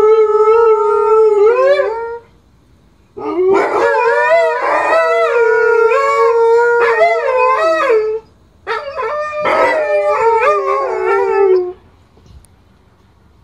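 Two Alaskan malamutes howling together: three long, wavering howls with short breaks between them, stopping near the end.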